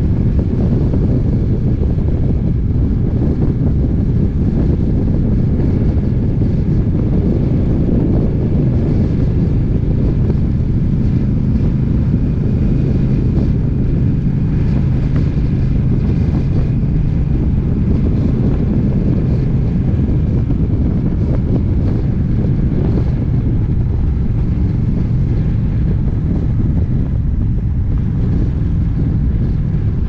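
Steady, loud wind rush on the microphone over a Honda Rebel 1100 motorcycle cruising at an even speed, its parallel-twin engine running low and steady underneath.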